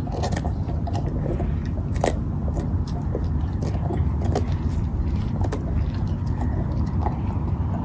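Bernese Mountain Dogs chewing raw carrots: irregular sharp crunches from several dogs over a steady low rumble.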